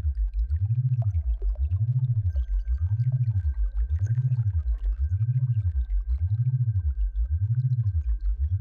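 Synthesized low tone in a tinnitus sound-therapy soundscape, repeatedly rising and falling in pitch about once a second, over a faint steady high tone.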